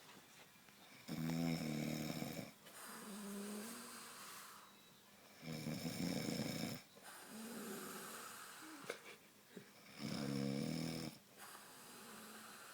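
A sleeping woman snoring: three loud snores about four and a half seconds apart, each followed by a quieter breath.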